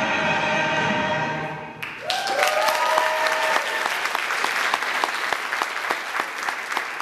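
Music ends on a long held note about two seconds in, and the audience breaks into applause, with a few rising whoops of cheering at the start of it.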